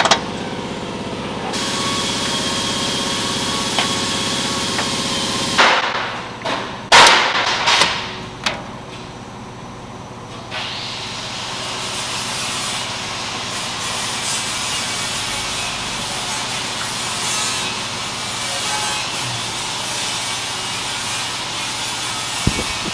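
Compressed air from an air-ride tank hissing out in several short, loud blasts as the push-button drain valve under the running board is pressed. A steady rasping hiss follows.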